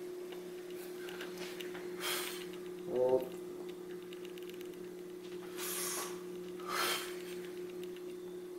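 A bodybuilder's short, hard breaths as he holds poses: three quick hissy exhales and one brief grunt-like voice sound about three seconds in. Under them runs a steady low hum.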